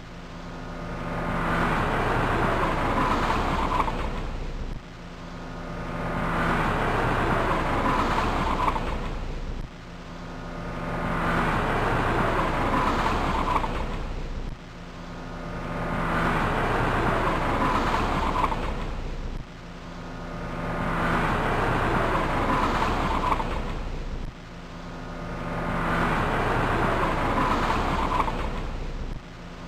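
Car driving on a highway: steady engine hum under tyre and road noise. It comes as a loop of about five seconds that swells, holds, then cuts off abruptly and starts over, again and again.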